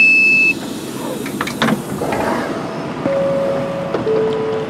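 Train door-open button's steady high beep stops about half a second in, as the passenger doors open with a few clunks. Near the end, a two-note falling chime sounds.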